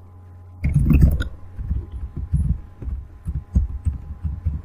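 Laptop keyboard being typed on: irregular dull keystroke thumps, several a second, beginning about half a second in, over a steady low electrical hum.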